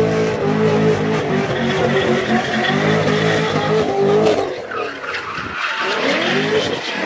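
Car engine held at high revs with wheelspin as a car drifts on snow; the revs fall away about four and a half seconds in, then climb again near the end.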